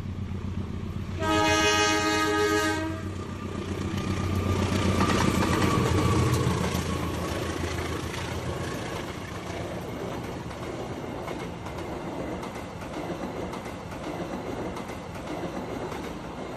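Train sound effect: a train horn sounds once, for about a second and a half, a second or so in, over the steady rumble of the train running, which swells a few seconds later and then carries on evenly.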